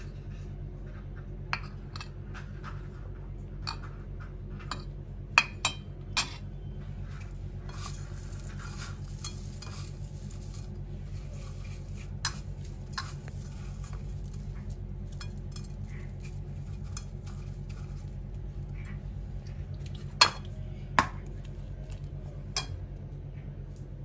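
A steel spoon clinking and scraping on ceramic plates while chicken nuggets are coated in beaten egg, with sharp clinks about five seconds in and again near the end. In between comes a soft rustle of hands pressing the nuggets into crushed cornflakes, over a steady low hum.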